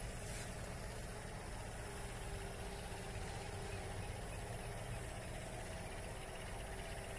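A steady low mechanical hum under an even background hiss, unchanging throughout.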